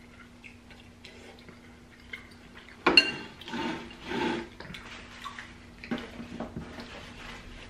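Close-up mukbang eating sounds: wet slurping and chewing of black bean noodles, with small clicks of metal forks on glass bowls and one sharp clink about three seconds in.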